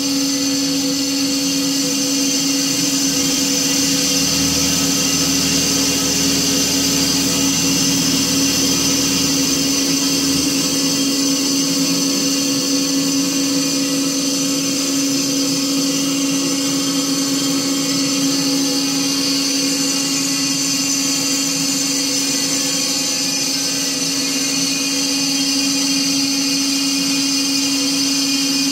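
BOMAR Workline 610.450 DGH semi-automatic metal-cutting band saw running, its blade cutting through metal stock: a steady mechanical hum and whine, with a deeper rumble for a few seconds early in the cut.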